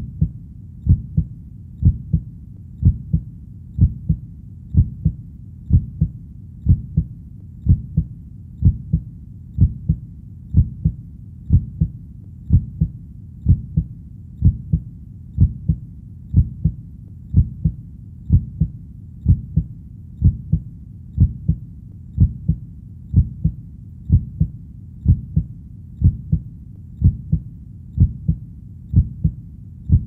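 Heartbeat: a steady, even rhythm of low double thumps (lub-dub), about one beat a second.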